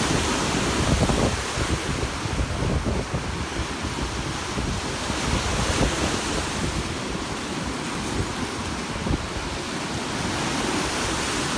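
Small Lake Erie waves breaking and washing up a sandy shore, with wind buffeting the microphone, most heavily in the first couple of seconds.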